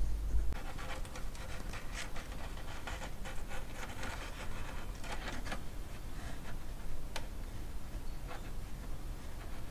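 Faint, irregular scratching and light rubbing from fingers working at the centre of a large paper loudspeaker cone whose voice coil rubs in its magnet gap, which the owner hopes is only dirt in the gap.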